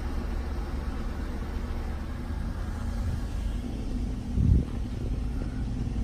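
Car driving along a road, heard from inside the cabin: a steady low rumble of engine and tyres, with a short thump about four and a half seconds in.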